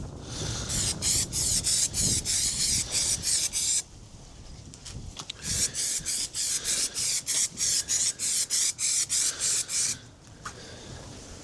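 Rapid back-and-forth abrasive scrubbing strokes on the removed steel fuel tank, about three strokes a second, preparing its surface for stone chip. The strokes pause briefly about four seconds in, then resume.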